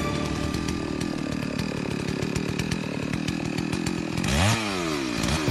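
Chainsaw engine running steadily, then revving up and dropping back several times near the end.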